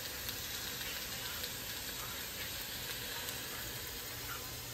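Cubed chicken frying in oil in a wok, sizzling with a steady hiss and faint crackles.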